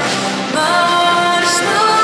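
Wind band of saxophones, clarinets and flute playing held chords, accompanying a female singer amplified through a PA. The notes change about half a second in.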